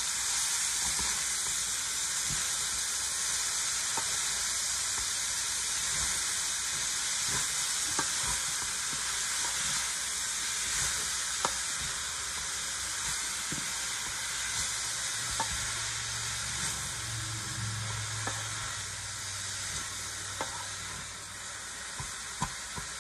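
Shredded cabbage sizzling as it fries in a stainless steel pot, with scattered clicks and scrapes of a wooden spatula against the pot as it is stirred.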